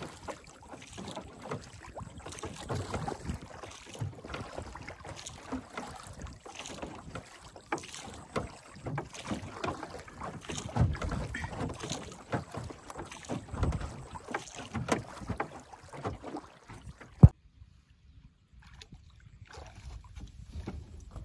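Water lapping and splashing against the hull of a small wooden boat, with wind on the microphone. About seventeen seconds in, a single sharp click is followed by a moment of near silence, then fainter water noise.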